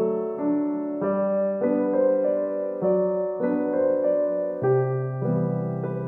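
Background instrumental music: a slow, even melody of held notes, with a new note about every half second.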